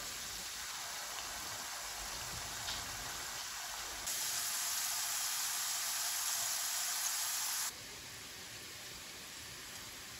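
Hand-cut potato strips deep-frying in a pan of hot oil: a steady, dense sizzle that sounds like rain. It grows louder about four seconds in and drops to a fainter hiss about three-quarters of the way through.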